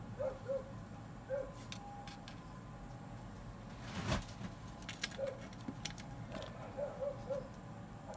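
A dog whimpering in short, high whines, several in a row, some coming in quick runs. A knock about four seconds in and a few lighter clicks come from parts being handled on the workbench.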